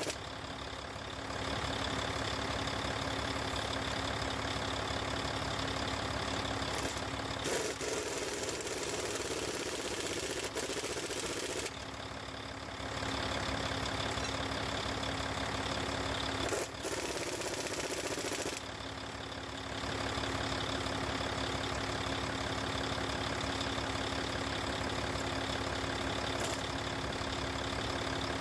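Semi truck's diesel engine running steadily, its sound changing abruptly several times.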